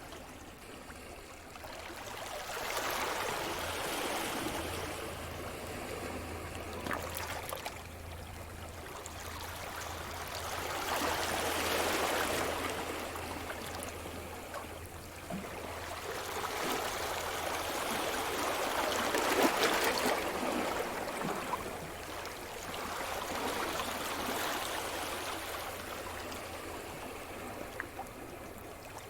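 Sea surf: waves breaking and washing up the shore, the rush of water swelling and fading four times, every five to eight seconds.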